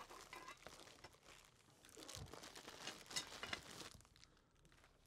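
Faint crinkling and rustling of a clear plastic bag being handled, dying away about four seconds in.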